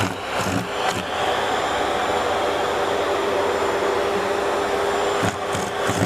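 A cat licking a vacuum cleaner's plastic nozzle: rhythmic rasping strokes, a few a second, in the first second and again near the end. In between there is a steady hum.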